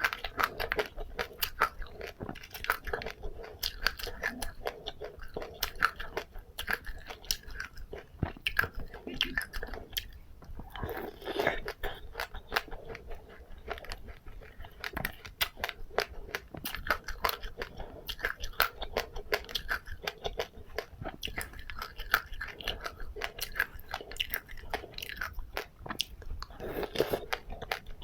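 Close-up chewing of crunchy seeds with passionfruit pulp: a continuous run of small, quick crunches and wet mouth clicks.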